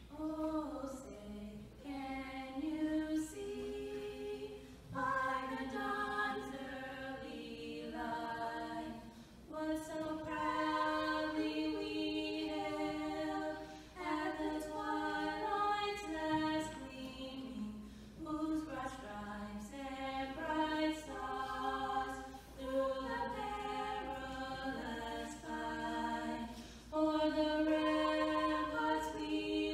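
Two female voices singing the national anthem a cappella, with no accompaniment, starting about half a second in and holding long notes phrase by phrase.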